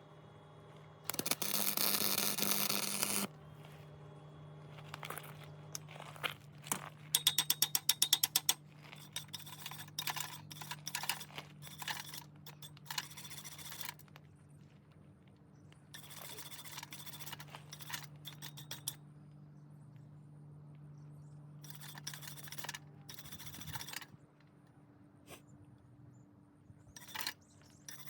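Metalworking noises: a loud rough burst of about two seconds, a quick run of clicks, and several shorter bursts, over a steady low hum.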